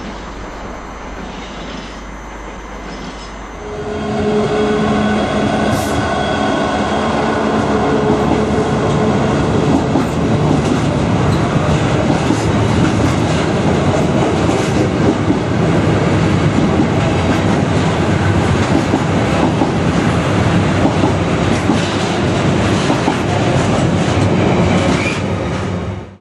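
A diesel-hauled freight train of container wagons passes close by. It arrives loudly about four seconds in, with a steady engine note at first, then a long run of wheels clattering over the rail joints.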